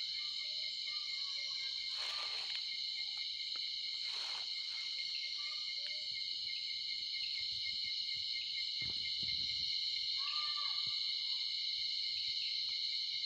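Night chorus of crickets and other insects: a steady high-pitched trilling, with two brief soft rustles of noise in the first few seconds.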